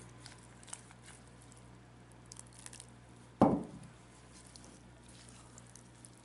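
Silicone spatula stirring thick wet vegetable and chickpea-flour batter in a glass bowl: faint wet squishing with small clicks, and one louder thump about three and a half seconds in.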